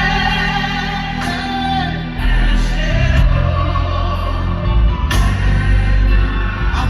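Live gospel worship music: a singer leads a sung phrase of thanks in a Nigerian language over a full band with heavy bass and drums, with sharp hits about a second in and again about five seconds in.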